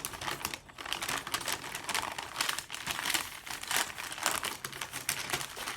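A paper takeout bag being handled and crumpled, with a run of irregular crinkles and crackles.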